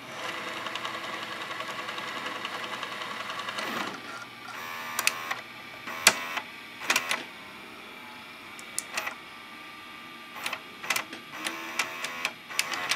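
Sony SLV-595HF VCR's tape mechanism: a motor whirs steadily for about four seconds as it tries to rewind, then the deck clicks and clunks repeatedly as it unloads the tape. The supply reel does not turn to spool the tape back in, the fault that leaves the tape hanging out of the cassette on eject.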